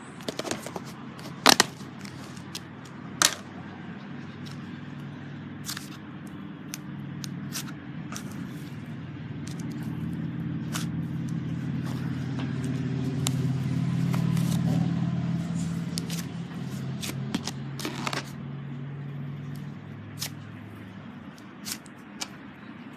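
Slime being handled, giving scattered sharp crackling pops and clicks, over a low hum that swells up in the middle and fades away.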